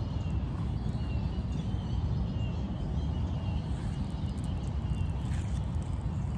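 Steady low rumble of background noise with faint, short chirps repeating throughout, like birds calling.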